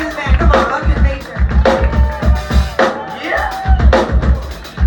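A live rock band playing, with the drum kit's kick drum and snare keeping a steady beat under bass and other instruments.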